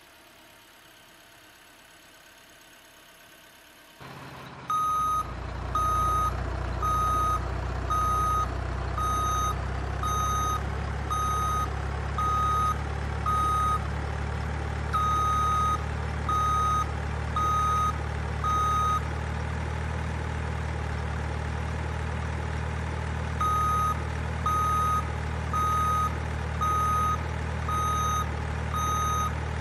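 Remote-control truck's sound module: a simulated truck engine starts about four seconds in and runs steadily, while a reversing beeper sounds about one and a half times a second, pausing for a few seconds midway before resuming.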